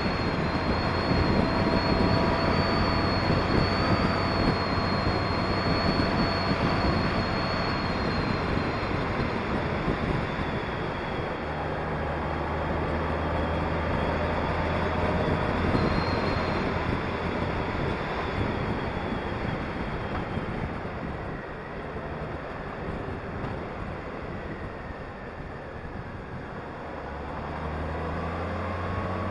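Honda Gold Wing motorcycle on the move, its engine running under a steady rush of wind on the microphone. The wind and engine ease off for a few seconds about two-thirds of the way in, then pick up again near the end.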